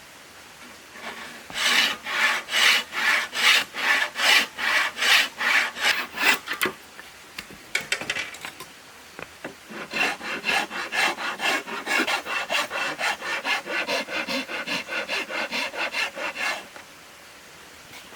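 A hand tool worked back and forth on wood in quick, even strokes. There is a run of about fourteen strokes, a pause of a few seconds, then a slightly faster run of about twenty strokes that stops near the end.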